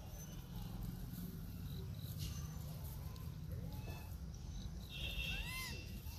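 A baby rhesus macaque gives a short, high coo that rises and falls in pitch, about five seconds in, with fainter calls shortly before it, over a steady low rumble.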